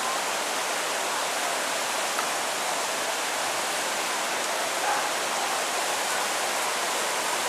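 Shallow creek water running over rock ledges, a steady rushing hiss.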